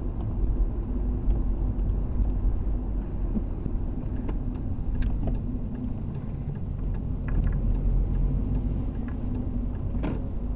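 Steady low rumble of a car's engine and tyres heard from inside the cabin while driving slowly in traffic, with a few faint clicks.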